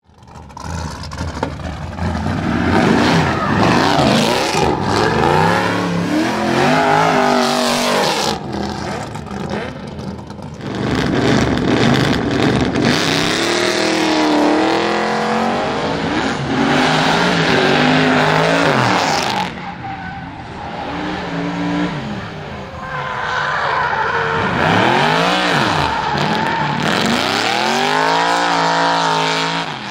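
BMW M2 drift car's engine revving hard, its pitch rising and falling again and again, with tyres squealing and hissing as the rear wheels spin through smoky slides.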